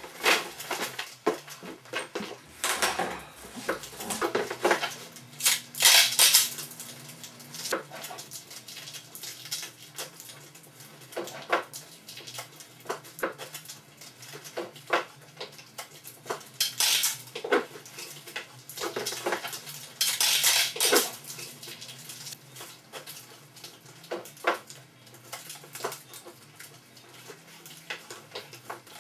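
Hard objects clinking, knocking and clattering as they are handled, irregularly, with a few louder bursts of clatter. A faint steady low hum runs underneath.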